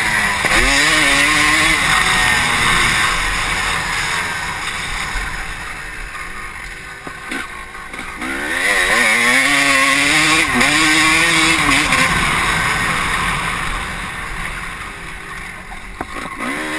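Honda CR250 two-stroke motocross bike's engine being ridden hard on a dirt track, its pitch rising and falling through the revs, heard from a helmet camera. It runs loud, eases off over several seconds, then comes back on hard about eight and a half seconds in before easing off again.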